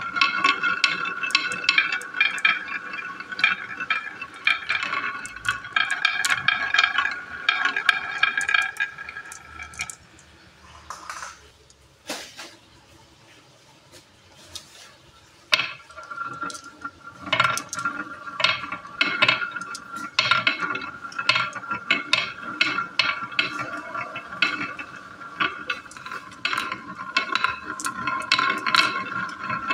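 Marbles rolling down a wavy groove in a painted wooden marble-run track: a steady rolling hum with many quick clicks as they knock against the groove walls and each other. It goes quiet for about five seconds near the middle, apart from a single click, then a new batch starts rolling.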